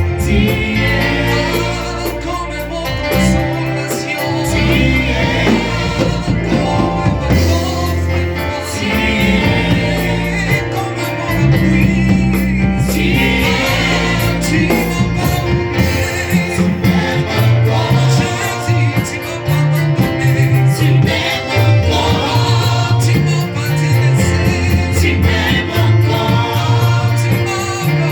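Church worship music: voices singing a gospel-style song together over instrumental accompaniment with a bass line that changes note every second or so.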